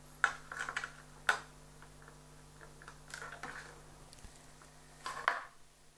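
A few light clicks and taps with soft rustling as a small plastic tail skid is handled and pressed onto the foam tailplane and aluminium tail boom of a model plane. A faint steady hum lies underneath.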